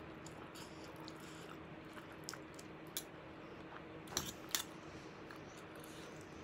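A person chewing a mouthful of rice, faint, with a few sharp clicks of a metal fork and spoon against a plastic tray: one about three seconds in and two close together a little after four seconds.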